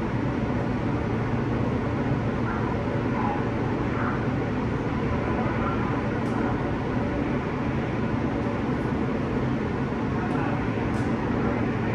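Inside a New York City subway car on the L train: the steady rumble and hiss of the train running along the tracks, even in level throughout.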